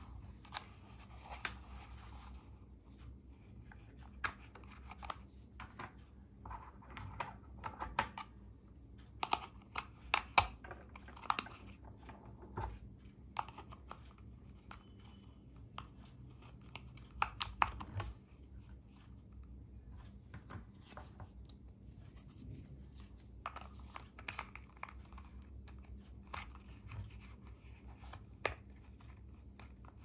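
Hard plastic of a toy RC car's steering-wheel remote control being handled: scattered sharp clicks and knocks with scraping as its battery compartment is opened and AA batteries are handled in it.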